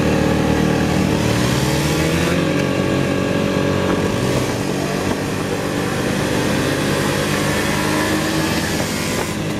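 Piaggio MP3 400 scooter's single-cylinder engine pulling hard at full throttle from a standing start. The pitch climbs over the first couple of seconds and then holds nearly steady as the automatic transmission takes up speed, under steady wind noise.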